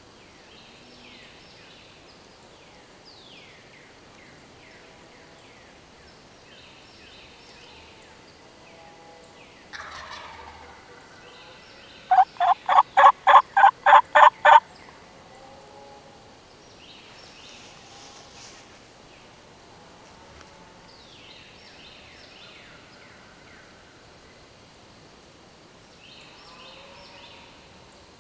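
Wild turkey calling at close range: a loud run of about ten rapid notes, about four a second, lasting a couple of seconds, against faint songbird phrases.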